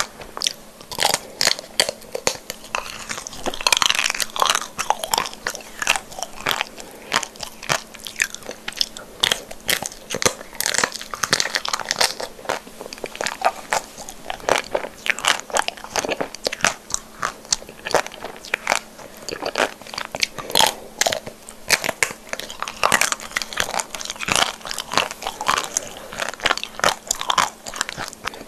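Close-miked crunching and chewing of chocolate-coated bites with a soft white filling: quick, dense crackles and mouth clicks as the chocolate shell breaks and is chewed. A faint steady hum lies underneath.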